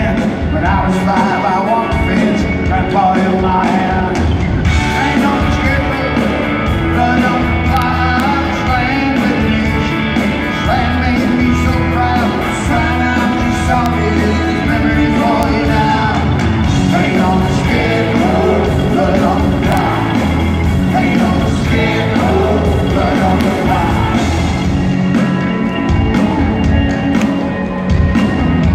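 A rock band playing live through a concert PA, with drum kit and electric and acoustic guitars, heard from the audience in a large hall.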